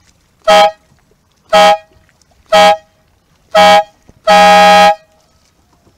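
Air horn sounding four short blasts about a second apart, then one longer blast near the end: the countdown and start signal of a sailing race.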